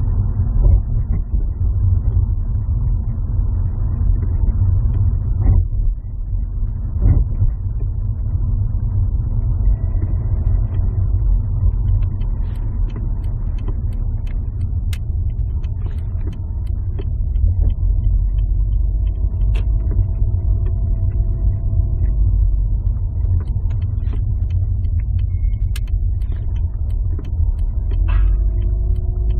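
Low, steady rumble from a BL5 Subaru Legacy, the abnormal noise its owner is recording, with a few faint wavering tones and scattered light clicks over it in the second half.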